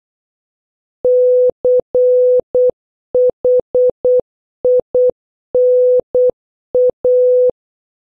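Morse code tones: one steady electronic beep keyed on and off in long dashes and short dots, dash-dot-dash-dot, dot-dot-dot-dot, dot-dot, dash-dot, dot-dash, spelling the word CHINA. It starts about a second in and stops about half a second before the end.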